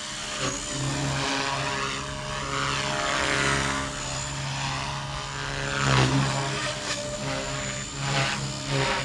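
Blade Fusion 180 electric R/C helicopter in flight with its canopy removed: a steady whir and whine from the main rotor blades and electric motor. The sound swells a few times as it manoeuvres, most clearly about six and eight seconds in.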